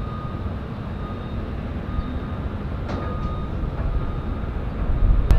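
A low, steady rumble with a faint thin whine over it, and a brief click about three seconds in. A sharp click comes just before the end.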